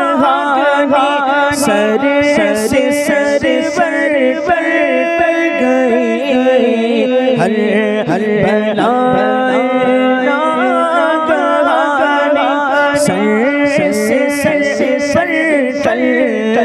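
Male voice singing an Urdu manqabat (Sufi devotional song) without instruments: a melismatic line whose pitch winds up and down over a steady low held note, with no words picked out.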